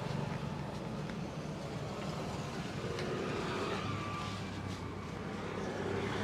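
Roadside traffic noise: a motor vehicle engine running close by, with a low hum that strengthens about four seconds in and a few faint clicks over it.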